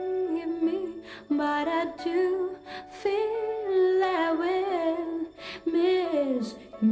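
A woman singing a pop melody with musical accompaniment, holding notes with vibrato and breaking briefly between phrases.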